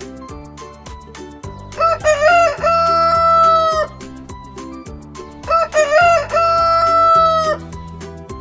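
A rooster crowing twice, each crow a short stuttering rise into a long held note, a few seconds apart, over light background music.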